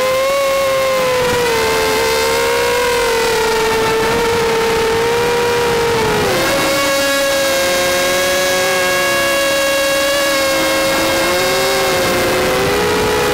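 Vortex quadcopter's electric motors and propellers whining up close from the onboard camera, in several pitches that wander up and down with the throttle. About six seconds in the pitch drops and the motors' tones split apart, then rise again near the end.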